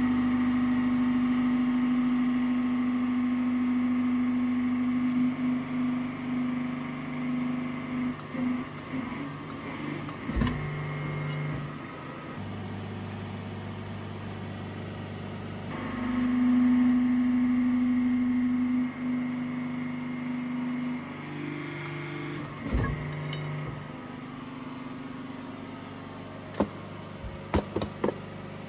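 Press brake bending steel plate: a steady machine hum that swells louder and higher in pitch for two bends, one at the start and one about halfway, dropping to a lower hum between them. There is a heavy clunk at the end of each bend, and a few sharp metal clinks near the end.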